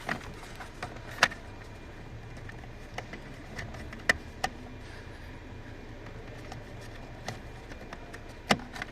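A few scattered sharp clicks and taps of plastic trim and wiring connectors being handled inside a car cabin, the strongest about a second in and near the end, over a steady low hum.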